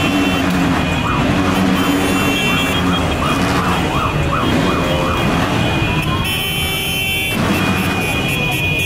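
Vehicle sirens sounding over the running engines of a motorcycle caravan: a yelping rise and fall about twice a second for several seconds, then a slow rising wail about six seconds in.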